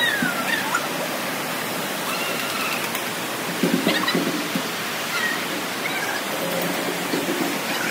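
Indoor play area ambience: a steady rushing wash of background noise, with faint high children's calls here and there and a brief burst of voices about halfway through.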